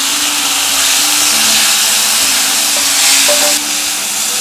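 Chopped raw banana peel sizzling in hot coconut oil in a wok with a tempering of mustard seeds, rice, dried chillies and curry leaves. The sizzle is loud and even, easing a little about three and a half seconds in.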